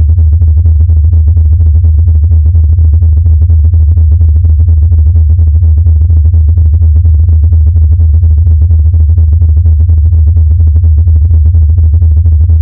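Sonified X-ray data from the black hole XTE J1650-500: a loud, deep mechanical moan made of a low drone with a rapid, even pulsing flutter.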